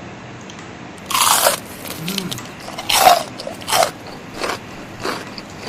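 Crunchy bites and chewing of crispy fried chicken: a loud crunch about a second in and another near three seconds, followed by smaller crunching chews roughly every half second to second. A short low hum from the eater partway through.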